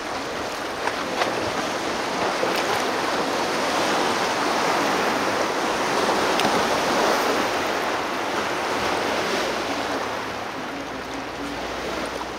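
Steady rushing noise of water and wind around a kayak, swelling in the middle and easing toward the end.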